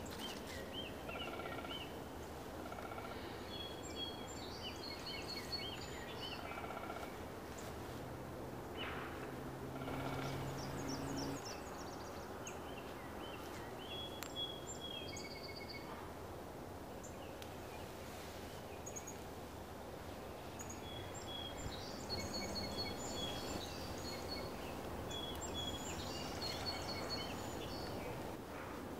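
Small birds chirping and singing over a steady background of outdoor noise. A low hum comes in about eight seconds in and lasts a few seconds.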